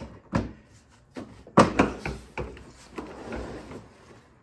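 Plastic shell panel of a Briggs & Stratton Q6500 inverter generator being worked loose and handled: a string of hard knocks and clicks, the sharpest about a second and a half in, followed by scraping rattles.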